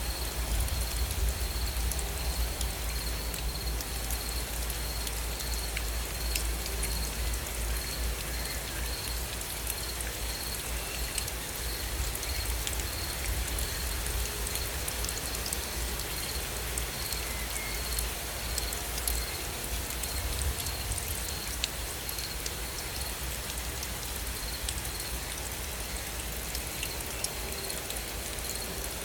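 Steady rain falling, with scattered sharp drop hits over a low rumble. A faint high chirp repeats about twice a second throughout.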